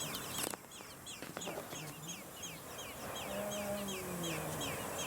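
Blackbird nestlings calling from the nest: a rapid run of short, high chirps, each falling in pitch, about three a second. It pauses briefly after a click about half a second in, then carries on.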